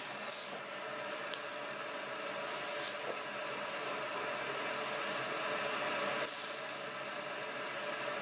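Pork intestine pieces sizzling on a wire grill mesh over charcoal, a steady hiss, with a few brief scrapes of metal tongs against the mesh as the pieces are turned.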